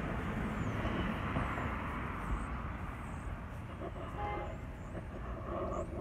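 Rumble of a passing vehicle, fading after the first few seconds. From about four seconds in, a quick run of short, pitched calls or tones.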